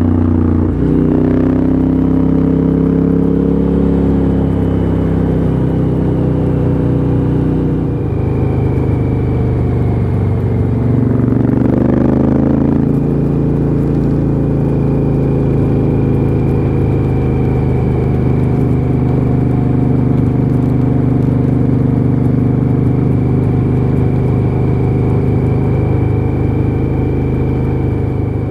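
Adventure motorcycle's engine heard from on board while riding: it drops in pitch just after the start, revs up again around eleven seconds in, drops sharply as it shifts up, then runs steadily at cruising speed.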